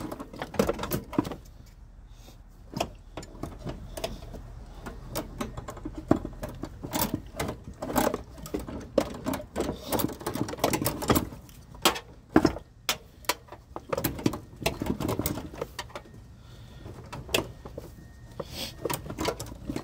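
Irregular clicks, knocks and rattles of hard plastic and metal as the Toyota 4Runner's HBB ABS brake master cylinder unit is wiggled and worked loose by hand.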